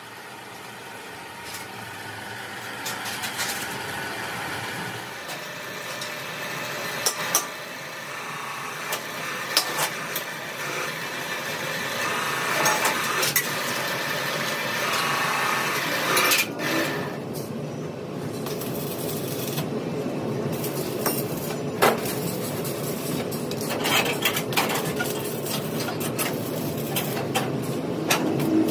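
Stick (arc) welding on a steel air-compressor tank: a steady hiss, slowly growing louder, with scattered sharp clicks and knocks.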